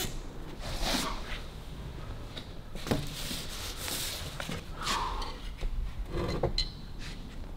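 Workshop handling noises: rags rubbing and a few scattered knocks as a motorcycle frame and engine are moved about by hand.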